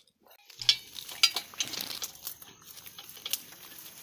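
Loose metal parts clinking and knocking as bolts and pipe flanges are handled while hoses are fitted to a water pump: a few sharp, separate clinks, two close together about a second in and one more near three seconds.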